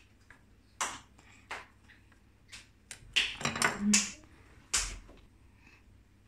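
Kitchen utensils and dishes being handled: several separate short knocks and clinks, with a louder cluster of them about three to four seconds in.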